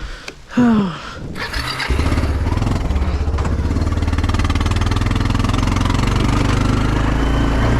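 An engine starts about two seconds in and settles into a steady idle, after a loud thump shortly before it.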